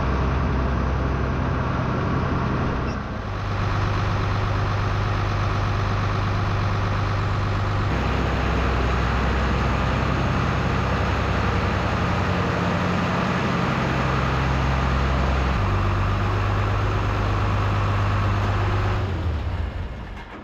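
International 686 tractor engine running steadily under work. Its low hum changes abruptly about three, eight and fifteen seconds in, and it fades out near the end.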